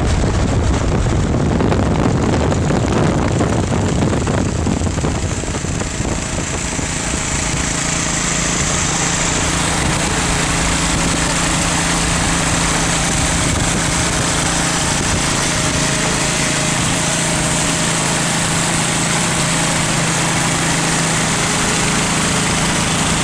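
Steady engine drone with wind and road noise at highway speed; heavy wind buffeting on the microphone for the first few seconds, then a more even drone.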